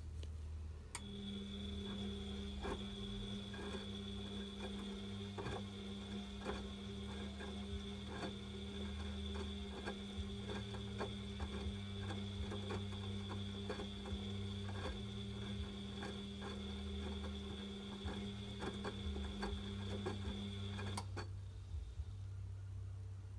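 Bosch front-loading washing machine tumbling a wet load: a steady motor hum and whine that starts about a second in and stops near the end as the drum halts, over a low rumble. Irregular clicks and knocks come from the laundry falling in the drum.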